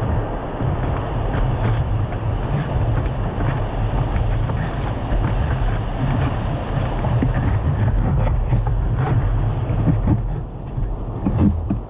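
Steady low rumbling noise, with no speech.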